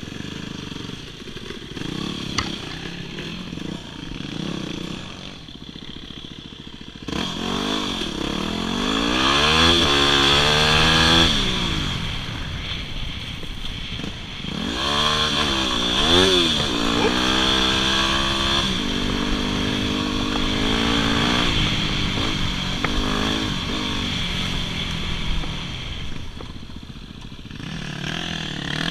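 Yamaha WR250R's 250 cc single-cylinder four-stroke engine being ridden, running low at first, then revving up through the gears in rising pitch sweeps about seven seconds in and again around fifteen seconds, then running steadier and easing off near the end.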